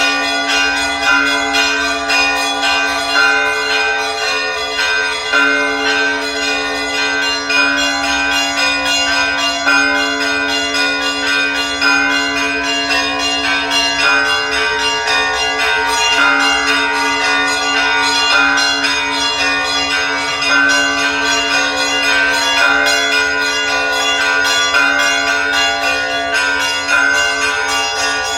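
Church bells ringing a continuous peal. Smaller bells are struck rapidly over the steady ring of deeper bells.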